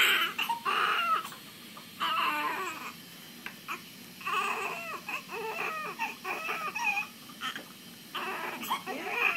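Newborn baby crying in repeated bursts with short pauses between them, while being washed with a cloth.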